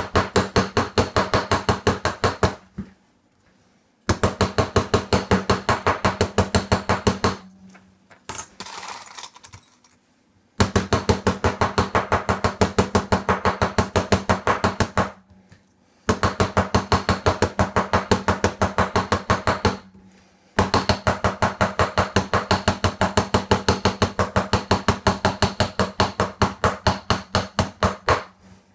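Small hammer tapping metal-clay jewellery pendants on a steel bench block: rapid, even blows several a second in runs of a few seconds, with short pauses between runs and a brief handling noise in one of them.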